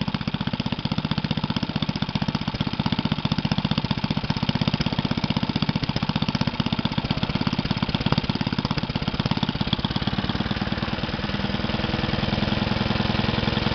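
Briggs and Stratton Model 8 single-cylinder air-cooled four-stroke engine running steadily, its firing strokes coming in a fast, even beat. It gets a little louder near the end.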